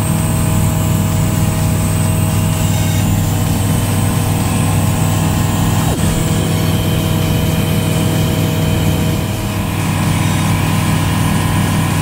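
Light propeller aircraft's piston engine and propeller droning steadily, heard inside the cockpit.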